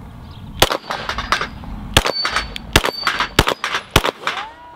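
Six pistol shots from a Glock, fired at a steady pace about two-thirds of a second apart. Between them come the sharp metallic pings of steel plates being hit.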